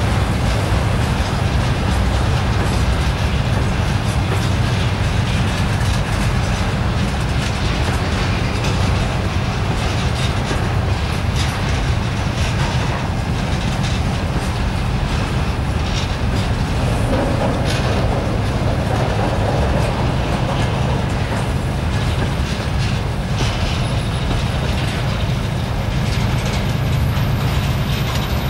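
Freight train of covered grain hopper wagons rolling past at close range: a steady, loud rumble of steel wheels on the rails, with irregular clicks from the wheels and rail joints.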